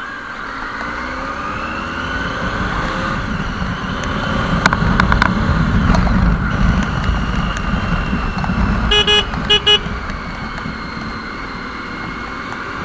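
Triumph Tiger XRx's 800 cc inline-three running on the move in traffic, rising in pitch over the first few seconds, with wind rumble on the microphone. A vehicle horn toots twice in quick succession about nine seconds in.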